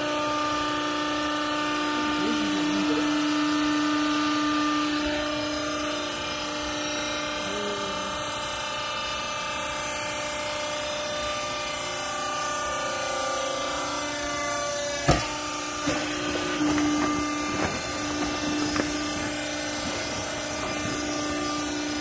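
A vertical hydraulic clothes baler's pump motor runs with a steady hum. About fifteen seconds in there is a sharp click, followed by a few lighter knocks.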